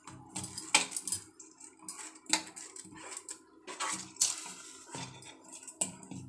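Steel ladle stirring milk and rice in a steel pot, scraping and clinking against the bottom and sides in short, irregular strokes about once or twice a second.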